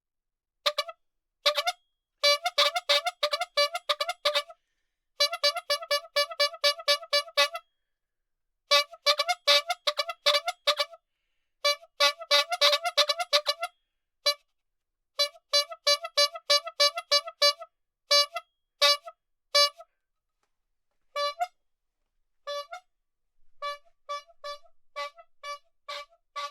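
Rubber-bulb squeeze horn (pafu-pafu horn) honking. It gives quick runs of short toots, about five or six a second, with single and paired honks in between. The honks near the end are softer.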